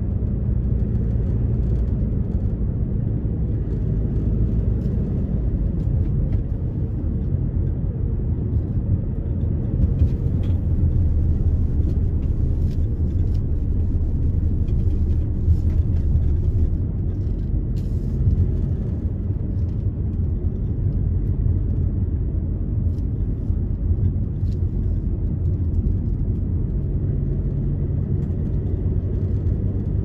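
A car driving steadily along a road: an even, low rumble of tyre and engine noise, with a few faint ticks.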